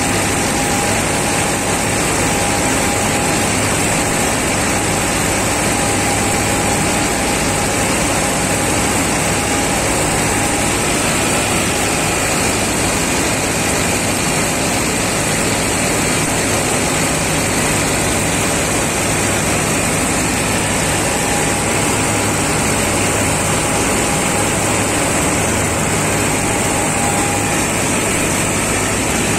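Combine harvester at work, its engine and harvesting machinery running steadily: a constant, even drone with a steady low hum and a faint high whine.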